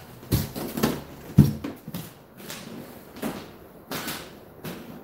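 Footsteps on a hardwood floor, a thud about every half second, the one about a second and a half in the loudest.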